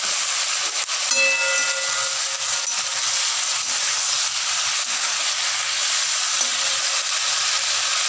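Cauliflower, potato and capsicum sizzling in oil in a steel kadhai, stirred with a spatula: a steady frying hiss with a few light scrapes and a brief high squeak about a second in.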